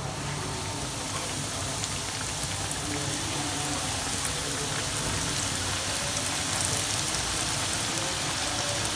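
Hot oil sizzling and crackling around flour-coated chicken drumsticks deep-frying in a pan, a steady rain-like hiss with small pops. It grows slowly louder as more pieces are laid into the oil.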